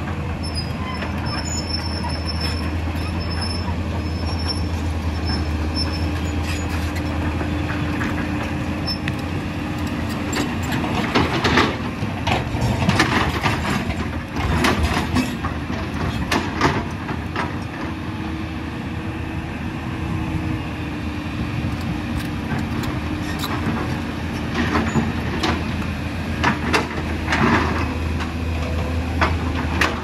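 Heavy diesel excavators running steadily under load, with a low engine drone and a steady hum. Over it come bursts of rocks knocking and clattering as the bucket digs through broken stone, busiest from about a third of the way in and again near the end.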